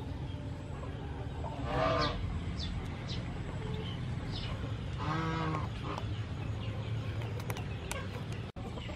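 Animal calls in the background: a pitched call about two seconds in and a lower, longer one around five seconds in, with a few short high chirps between them over a steady low hum.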